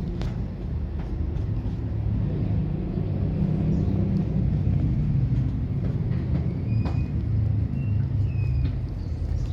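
A steady low rumble that swells a little in the middle, with a few faint clicks and short high chirps in the second half.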